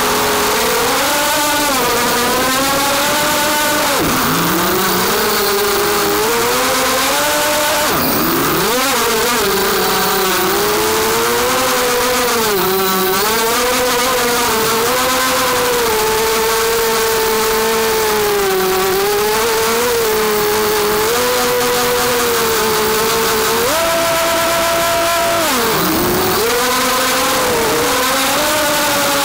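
Brushless motors and propellers of a 250-size FPV racing quadcopter whining, the pitch rising and falling constantly with throttle and dropping sharply where the throttle is chopped, about four, eight and twenty-six seconds in. Heard from the camera on the quad, with a steady hiss over the whine.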